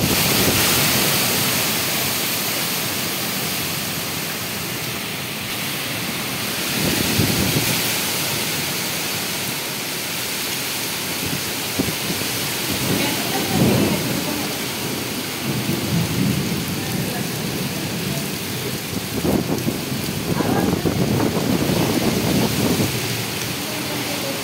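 Kalbaishakhi (nor'wester) storm: heavy rain and gusting wind making a steady loud hiss, with low rumbles that swell and fade several times.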